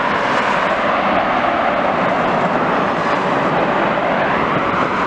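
Twin-engine jet airliner's engines during the landing roll on the runway, a steady loud rushing roar.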